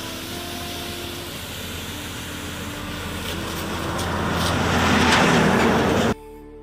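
A high-pressure water jet spraying against a truck's cab, with a steady machine hum underneath. The spray grows louder a few seconds in, then cuts off suddenly near the end.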